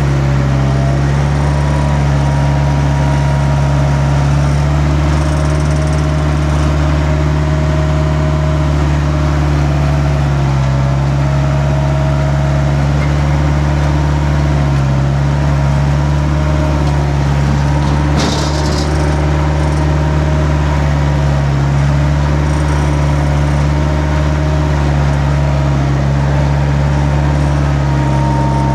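A vehicle engine running steadily, its pitch rising and falling slightly, with one sharp knock about eighteen seconds in.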